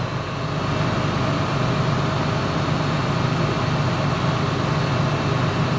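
Boat's engine running with a steady low hum.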